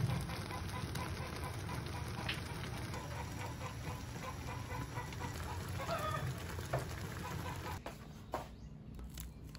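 Chickens clucking over the steady bubbling and burner noise of a pan of mung bean stew simmering on a gas stove. About eight seconds in, the bubbling stops and a few light clicks follow.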